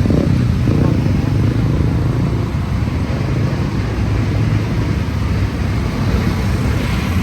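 Drag race car engine running loud with a deep, steady rumble, dropping away sharply near the end.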